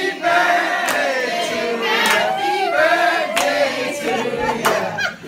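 A group of people singing together, with sharp hand claps on the beat about once a second.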